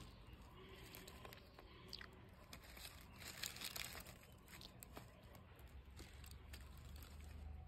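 Faint crackles and crunches of fingers handling and picking at brittle lumps of dried paal sambrani tree resin on a cloth, loudest about three and a half seconds in.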